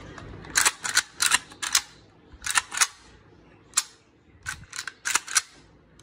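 Sharp metallic clicks and clacks from a Soviet AKM rifle's parts being worked by hand with the magazine out, about a dozen in irregular clusters of two or three.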